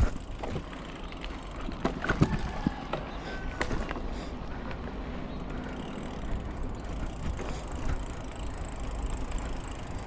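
Mountain bike rolling along a dirt singletrack, rattling over bumps with several sharp clacks and knocks in the first few seconds, over a steady low rumble.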